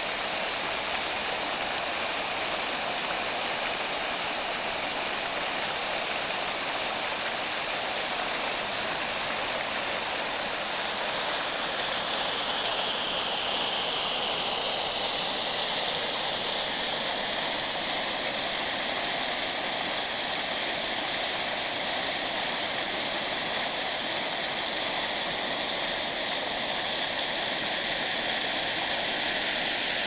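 Shallow mountain stream rushing over rocks, then the louder, fuller rush of water pouring over a low ledge and churning into white water below, from about twelve seconds in.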